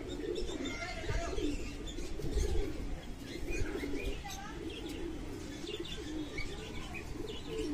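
Highflyer tumbler pigeons cooing continuously in a low, wavering murmur, with many short high chirps scattered over it.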